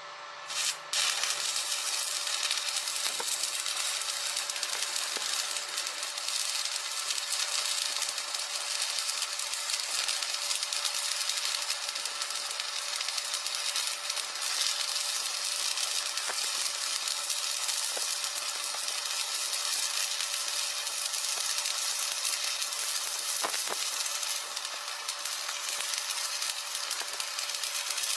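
MIG welding arc sizzling and crackling steadily, starting about a second in, over a faint steady hum.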